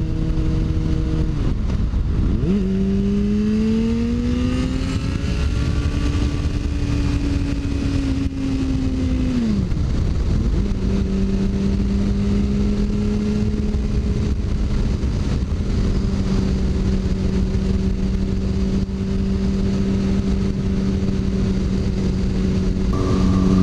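Sport bike engine under way: it eases off about two seconds in, climbs in pitch as the bike accelerates, holds, drops back near the middle, then settles to a steady cruise. Wind rushes over the helmet microphone throughout.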